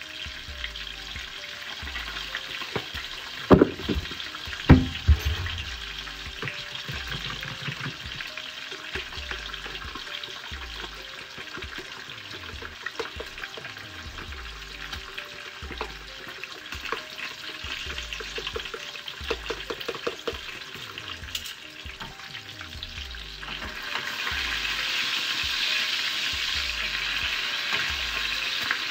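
Bacon sizzling in a frying pan. Two sharp cracks come a few seconds in as eggs are cracked, then a fork whisks eggs in a plastic container with a quick run of ticks. Near the end the sizzle grows louder as the bacon is turned with tongs.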